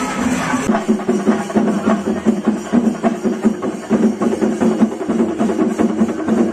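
Music with fast, rhythmic drumming; a sharper drum pattern starts abruptly a little under a second in and runs on at an even pace.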